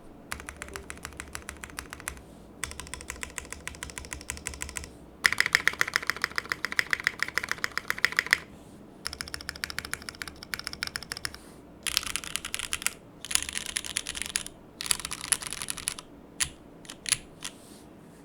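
Mechanical keyboard typing in fast runs of keystrokes with short pauses between them, the loudest run about five to eight seconds in and a few single key presses near the end. The keyboard is a Venn by Gok with a polycarbonate plate, leaf-spring sandwich mount and no dampening, fitted with lubed Cherry MX2A Black linear switches and GMK keycaps.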